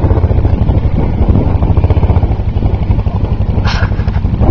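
ATV (quad bike) engine running close by, a steady low rapid pulsing as the quad rides through deep snow. A short burst of hiss comes near the end.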